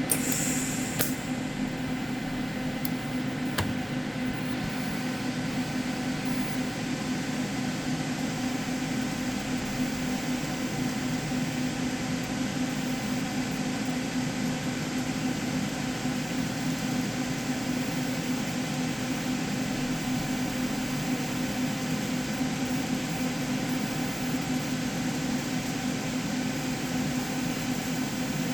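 Steady machine hum over a hiss, with a few short clicks in the first four seconds.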